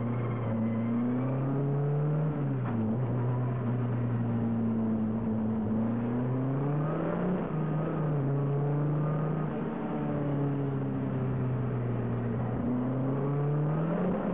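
Jidé sports car engine heard from inside the cabin, pulling hard through the gears on track: its note climbs and drops at gear changes about two and seven seconds in, holds steady, dips briefly near the end and climbs again.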